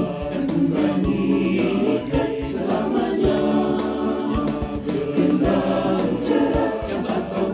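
Mixed church choir of women and men singing an Indonesian hymn of praise in unison, the voices of separately recorded singers mixed together, over instrumental accompaniment with percussive beats.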